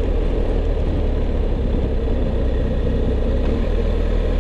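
Steady low rumble of wind and engine from a BMW R 1250 GS Adventure under way, its boxer-twin engine running evenly at a constant pace.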